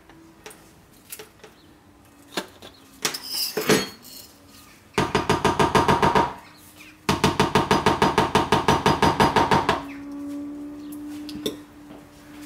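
Soap batter being mixed fast in a container, a utensil clattering against the side about ten times a second in two bouts, the second longer, with a few separate clicks before them. The batter is thickening toward trace.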